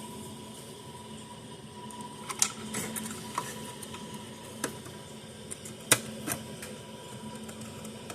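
Irregular light clicks and taps, about half a dozen, as test leads and parts of an electric fence charger are handled and hooked up on the bench, over a faint steady hum and a thin high tone.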